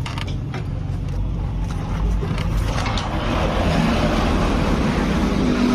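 A motor vehicle engine running close by, a steady rumble that grows louder about two to three seconds in. A few sharp clicks sound in the first second.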